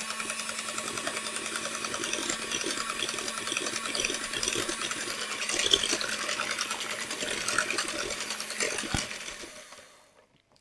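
Corded electric hand mixer running steadily, its beaters churning thin pancake batter in a glass bowl; the motor is switched off near the end.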